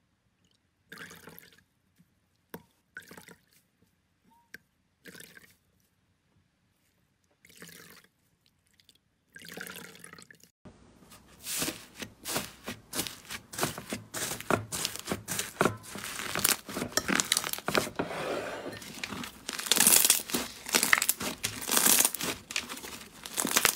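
Fluffy blue slime being poked and stretched by hand: dense, crisp crackling and popping that starts suddenly about ten seconds in and gets louder near the end. Before it, a few sparse, short wet squishes from a soaked sponge.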